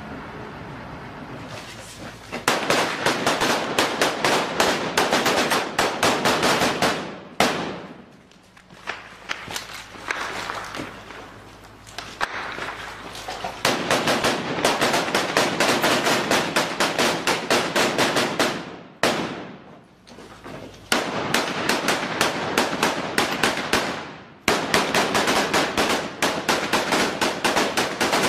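Close automatic gunfire: four long bursts of rapid shots, separated by short lulls.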